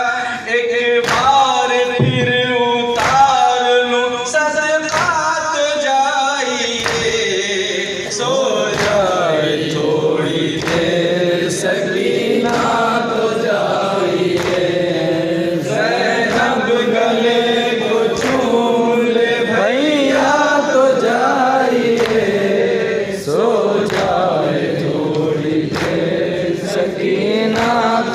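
Group of men chanting a noha in unison, with matam: hands striking chests in a steady beat of about one strike a second.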